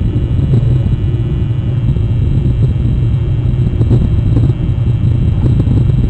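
Steady low rumble with a few faint clicks near the end.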